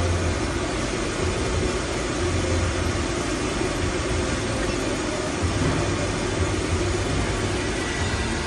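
Steady whir and hum of running machinery, with a low drone that swells and fades several times.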